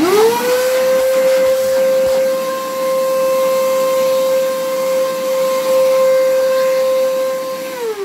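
Wet/dry drum vacuum cleaner's universal motor switched on and spinning up with a rising whine, then running at a steady high pitch with air rushing out of the exhaust port, before it is switched off near the end and the whine falls away. The motor has just been repaired: the loose screw holding the stator bearing bracket was refitted with lock washers, the cure for its heavy vibration.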